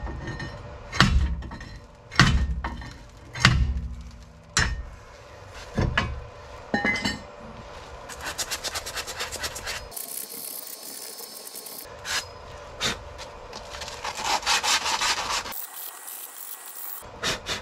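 About five heavy knocks in the first six seconds, then quick rhythmic scraping and scrubbing of metal. A scraper and then an abrasive pad are being worked over the bare front wheel hub face of a Toyota Highlander, cleaning it off after the brake rotor has come off.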